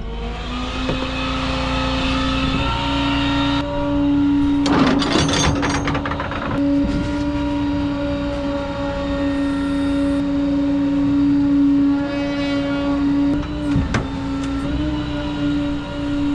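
Rollback tow truck running with its hydraulics engaged: a steady mechanical whine that steps up slightly in pitch about a second in and again near the end, with a few short clatters and knocks along the way.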